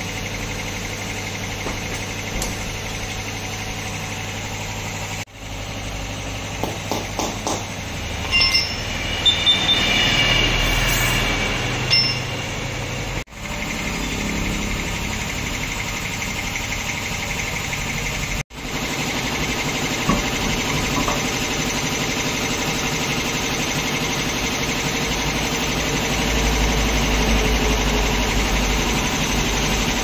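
Steady machine hum, broken off briefly three times, with scattered clicks and a cluster of high steady tones about nine to twelve seconds in.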